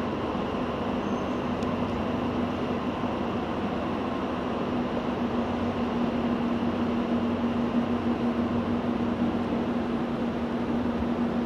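Steady hum of electric double-deck commuter trains standing at a station platform: one constant low tone over an even rushing noise.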